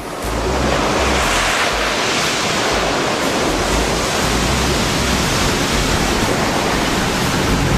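Ocean surf washing in on a beach: a steady, loud rushing noise.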